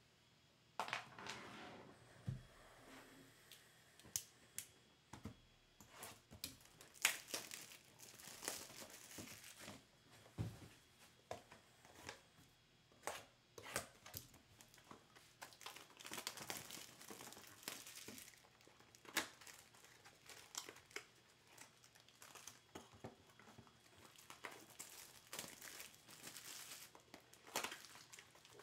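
Clear plastic shrink wrap crinkling and tearing as it is pulled off a trading card box by hand, in a long run of irregular sharp crackles and short rips.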